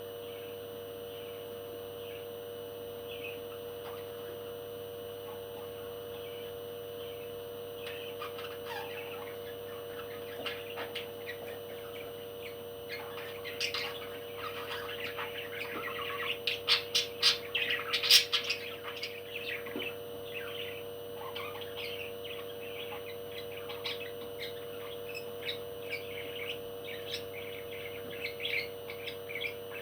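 Pet parrot chirping and squawking in short calls, building in the middle to a quick run of loud, sharp calls before settling back to scattered chirps, over a steady low hum.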